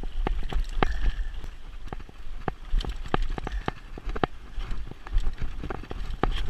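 Mountain bike rolling down a rocky dirt singletrack: irregular clicks and clatters from the chain and frame as the tyres strike rocks, over a steady low rumble of wind on the microphone.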